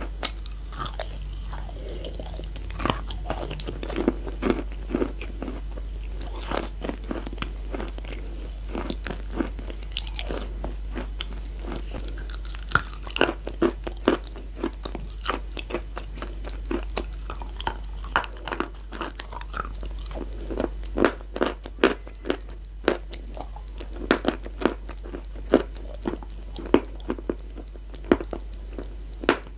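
Close-miked crunching and chewing of crumbled chalk and clay-chalk pieces: a dense run of sharp crunches, getting thicker and louder in the second half.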